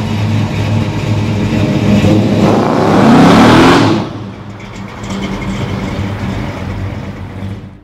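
Hemi V8 of a 1968 Dodge Charger running, then revving hard with a rising pitch about two and a half seconds in as the rear tyres spin in a burnout. The rev cuts off sharply about four seconds in, and the engine drops back to a lower note that fades near the end.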